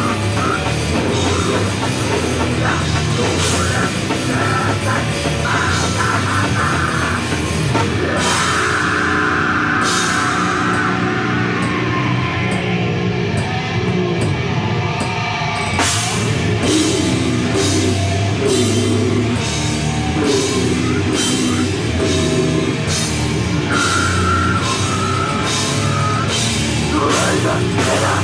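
Heavy metal band playing live: distorted electric guitar, bass and drum kit. The cymbals drop out briefly about halfway through, then return on a steady beat.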